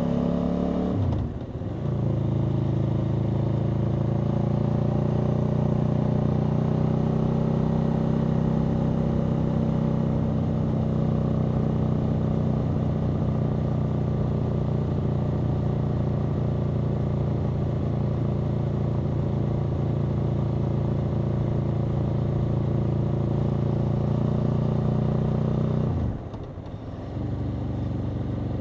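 Aprilia Tuono V4's V4 engine running under way on the motorcycle. About a second in, the engine note drops and dips briefly. It then holds steady at nearly constant revs for most of the time. Near the end the note drops again and settles into quieter steady running.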